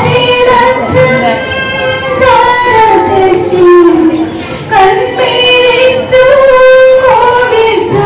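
High voices singing a slow melody, holding long notes that slide from one pitch to the next.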